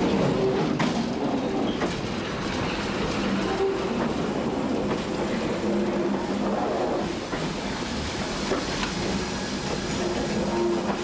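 ET 91 'Gläserner Zug' electric railcar rolling slowly past at close range, its wheels clicking over the rail joints now and then, with a steady hum.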